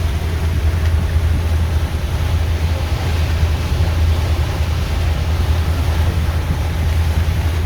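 A boat's engine runs steadily with a low, even drone, under a constant rush of wind and water noise.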